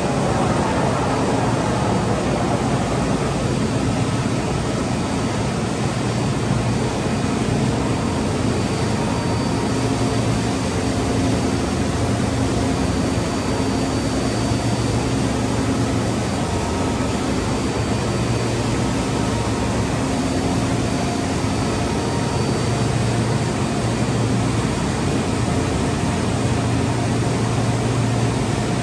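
DMS 5-axis CNC router running: a steady low hum with a faint high whine, holding level throughout.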